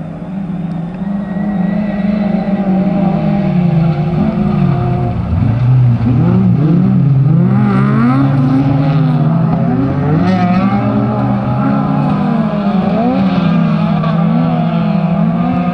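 Autocross race cars' engines revving hard on a dirt track, several at once, their pitch rising and falling over and over as the drivers accelerate, shift and lift through the bend. The sound grows louder over the first couple of seconds as the pack comes closer.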